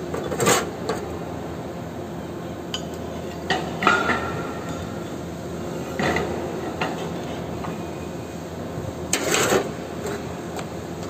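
Steel workpieces and tools knocking and clinking on a steel welding table as they are handled and set down. There are several separate knocks, one ringing briefly about four seconds in, over a steady workshop hum.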